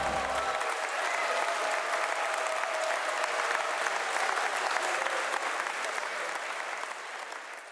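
A crowd applauding, fading out near the end.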